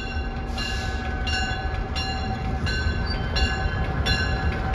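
Diesel switcher locomotive rolling slowly through a rail yard, its bell ringing in a steady rhythm of about one strike every 0.7 s over the low rumble of the engine.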